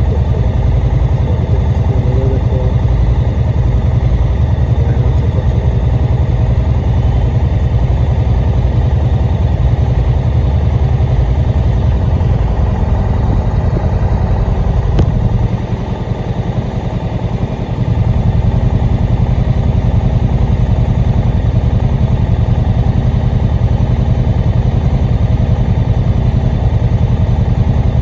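A vehicle's engine and road noise running steadily with a heavy low rumble while climbing a mountain road. The rumble drops for about two seconds just past the middle, then returns.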